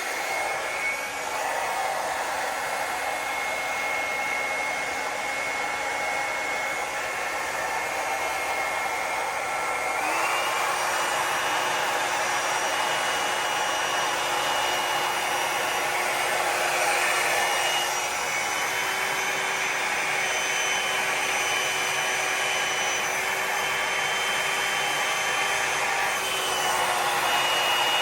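A hair dryer runs steadily, blowing wet acrylic pour paint to shape the wave. Its motor whine steps up in pitch about ten seconds in and shifts again near the end.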